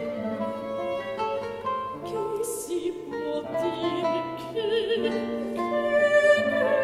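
Baroque aria played by violin and guitar with a soprano. Held violin notes sound over plucked guitar chords, and the soprano comes in about two seconds in, singing with vibrato.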